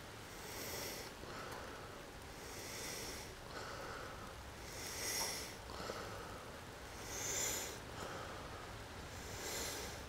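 A man breathing audibly through his nose, one soft breath about every two seconds.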